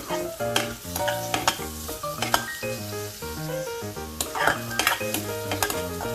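Sliced onion sizzling as it fries in hot oil, stirred with a spatula that scrapes and clicks against the pan. Background music plays underneath.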